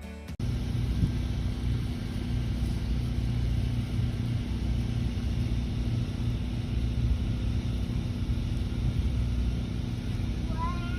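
A steady low engine rumble with a constant hum. It keeps an even level throughout, with no rises or falls in pitch.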